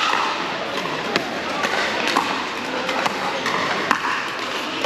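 Pickleball paddles striking a plastic ball in a rally: sharp pocks about twice a second, some from neighbouring courts, over a haze of indistinct voices in a large hall.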